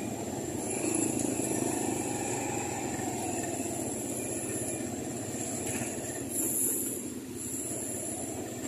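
Motorcycle and scooter engines running along with road and traffic noise, heard from a moving vehicle as a steady rush.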